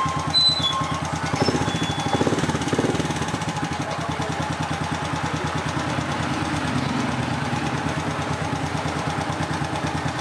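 Honda XRM125's single-cylinder four-stroke engine idling steadily at about 1,500 rpm on a freshly tuned carburettor, warmed to operating temperature. There are a few slightly louder surges in the first three seconds.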